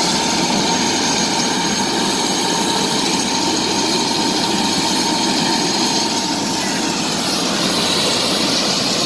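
Helicopter turbine engine running steadily, a dense rush with a thin high whine over it.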